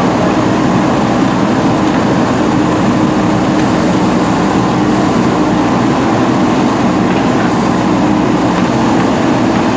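JCB 3DX backhoe loader's diesel engine running steadily under work, a loud, even mechanical noise with a constant low hum.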